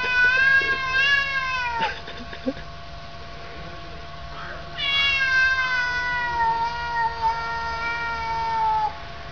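Domestic cats yowling at each other in a face-off, the drawn-out threat call that comes before a cat fight. One long wavering yowl breaks off about two seconds in; after a pause, another long yowl starts about five seconds in and slowly falls in pitch until it stops near the end.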